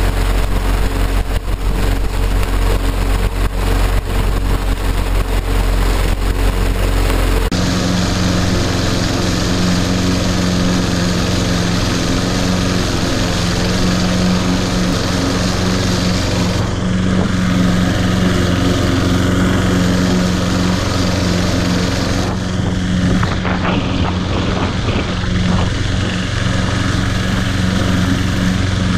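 Toro Super Recycler lawn mower's 190cc Briggs & Stratton flathead engine running steadily at mowing speed while cutting tall grass. About seven seconds in, the sound changes abruptly as the pickup switches from close on the mower's handle to a position behind the mower.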